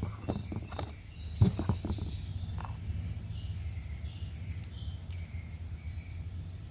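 A few knocks and clicks of plastic parts being handled and fitted together in the first two seconds, the loudest about a second and a half in. Then a low steady hum with faint bird chirps.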